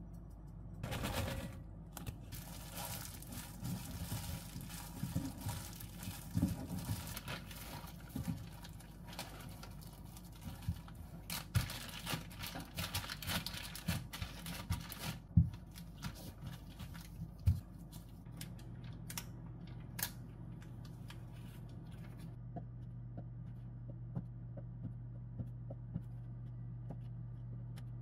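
Plastic zipper bag crinkling and rustling as hands pack and press a soft food mixture flat inside it. The crinkling dies down after about fifteen seconds, leaving a few light taps over a steady low hum.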